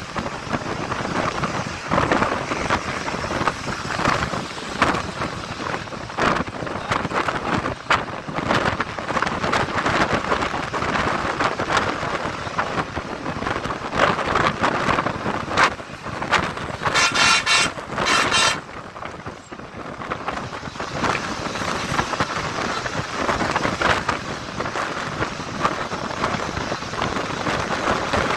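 Wind buffeting a microphone held out of a moving bus window, over the rushing road noise of the bus at speed. About two-thirds of the way through, a loud pitched tone sounds twice in quick succession.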